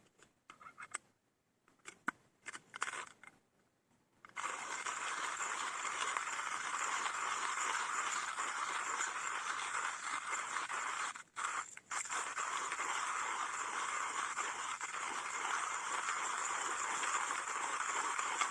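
A few scattered clicks and rattles, then a hand coffee grinder cranked steadily, its burrs crunching roasted coffee beans, with two brief pauses about eleven seconds in.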